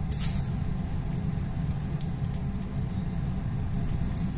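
Floured chicken pieces for karaage sizzling and crackling in hot frying oil at about 180 °C in a frying pan, with a short loud burst of sizzle as a piece goes into the oil at the start. A steady low rumble runs underneath.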